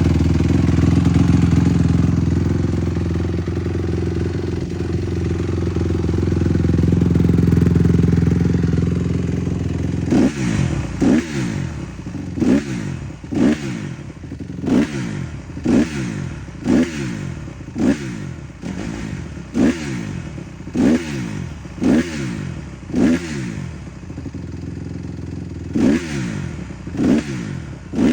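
2022 Honda CRF150R's 150cc four-stroke single-cylinder engine running at a steady fast idle for about ten seconds, then blipped repeatedly, about once a second, each rev rising sharply and falling back to idle.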